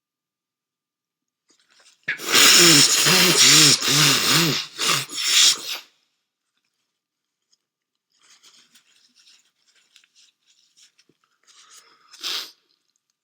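A person with a cold blowing their nose hard for about four seconds, with a wavering honk in it. Faint rustling follows, then a short sniff near the end.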